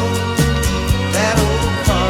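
A song with a steady beat and a sung vocal line.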